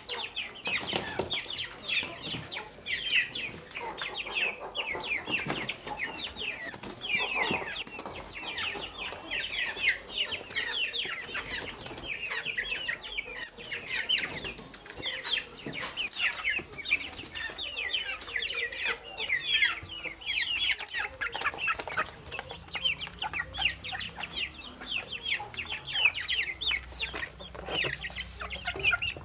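A flock of young chickens peeping without a break, many short, falling calls overlapping one another.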